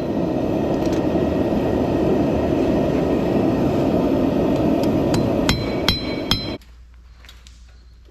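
Steady rushing noise of a forge with three ringing hammer blows on the steel knife blade near the end, as the blade is straightened. The noise cuts off abruptly about six and a half seconds in.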